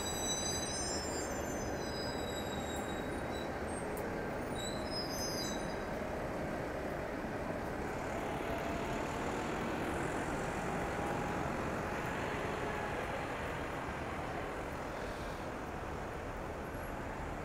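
Steady city street traffic noise. Several high, thin squealing tones sound over it in the first six seconds or so, then fade out.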